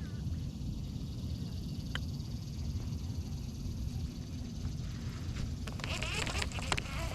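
Steady low rumble of open-air ambience on a fishing boat, most likely wind on the microphone, with a few faint clicks and a brief burst of high, fluttering chirps about six seconds in.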